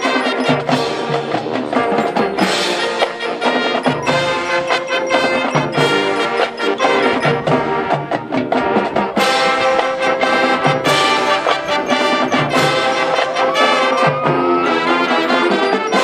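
Marching band playing: brass over percussion, with many struck notes.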